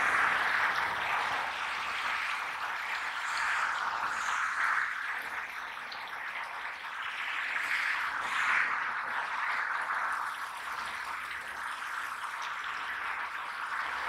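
Steady rushing of water, a continuous splashing hiss that swells and eases every second or so.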